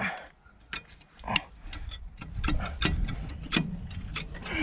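Sharp, irregular metal clicks and taps of a small screwdriver against the piston rings and the bottom edge of a finned cylinder from a Vladimirets T-25's air-cooled diesel, as the rings are squeezed one by one into the bore. A low rumble runs underneath from about a second in.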